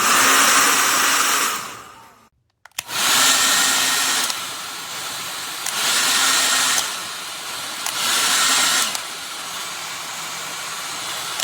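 Conair 1600 W compact travel hair dryer running: a loud rush of air over a steady motor hum. It winds down and stops about two seconds in, starts again a moment later, then swells louder and drops back every second or two.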